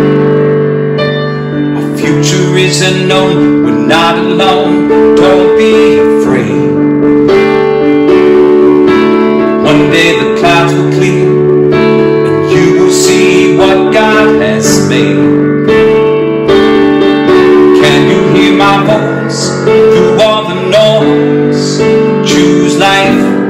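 A man playing held chords on a digital piano, with his singing voice coming in at times.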